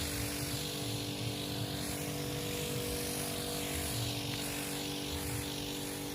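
Powered crop sprayer running steadily, its motor drone under the hiss of fungicide spray coming from the nozzle.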